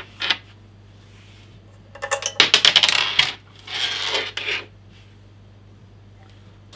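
Small metal hardware, washers and screws, clinking and rattling against each other and the tabletop as they are picked through by hand: a quick run of clicks about two seconds in, then a second burst about a second later.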